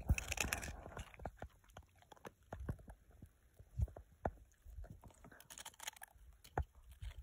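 Dog gnawing on a frozen chunk, with irregular sharp crunches and clicks of its teeth on the ice.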